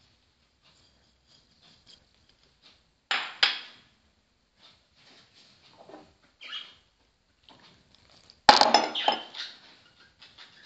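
Crockery clinking: a bowl knocking against a glazed earthenware dish, once sharply about three seconds in and in a longer clatter around eight and a half seconds in, with faint rustles of flour and hands in between.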